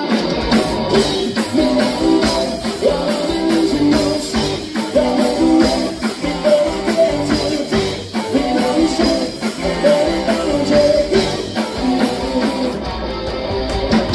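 Rock band playing live: guitar-driven rock music with singing and a steady beat.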